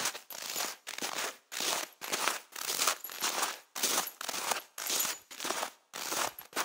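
Footsteps crunching through deep snow at a steady walking pace, about two steps a second.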